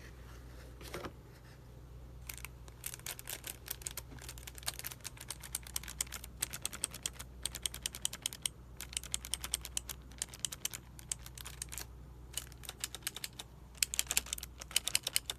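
Typing on a HyperX Alloy Origins mechanical keyboard with clicky HyperX Blue switches: runs of rapid key clicks begin about two seconds in and break off for a moment now and then. A faint steady low hum runs underneath.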